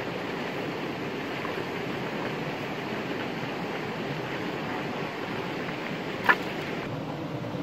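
Steady rush of flowing stream water, with a single sharp knock about six seconds in.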